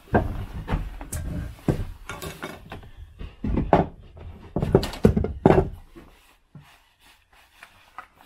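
Square wooden table-leg blanks and a steel square being handled and set down on a wooden surface: a run of knocks and clunks that stops about six seconds in.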